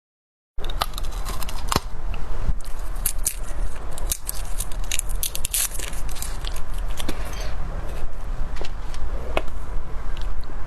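Close-miked eating and food handling: a dense run of sharp crackles, clicks and tearing sounds over a steady low hum.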